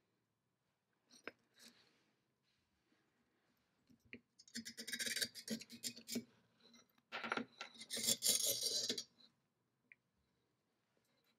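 Metal casting flask scraping and rubbing in the cradle of a Torit No. 7 centrifugal dental casting machine as it is worked loose and pulled out. There are a few light clicks, then two scraping stretches of about two seconds each, the first about four seconds in and the second about seven seconds in.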